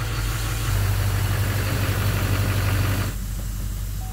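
Duramax LMM 6.6-litre V8 turbodiesel idling steadily, at a moment when it is sounding good, without its intermittent knock. The engine sound drops away abruptly about three seconds in, leaving a quieter steady hum.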